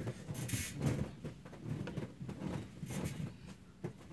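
Halves of a plastic rebreakable martial-arts board handled and fitted back together: a string of light clicks, taps and scrapes, with a short scraping hiss about half a second in.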